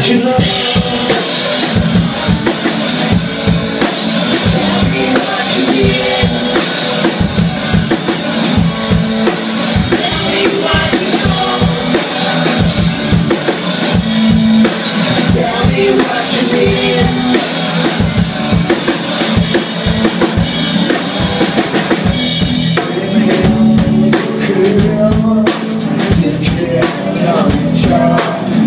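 Live rock band playing: an electric guitar and a drum kit keep up a steady, driving beat.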